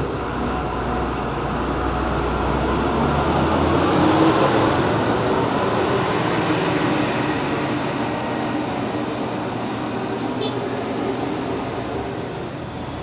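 Steady rumble of street traffic, with a passing vehicle that swells to its loudest about four seconds in and then slowly fades.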